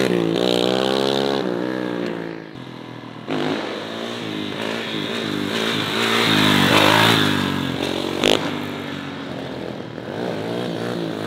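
Kawasaki KX450 four-stroke single-cylinder dirt bike engine revving hard, its pitch rising and falling as the throttle is worked through wheelies. About two seconds in it drops back for a moment, then comes in again sharply. A single sharp knock sounds about eight seconds in.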